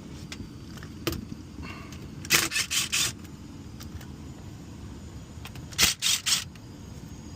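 Short bursts of scraping and rustling, in two groups of three or four, from hands working at an air handler's access panel, over a steady low hum of the running HVAC system.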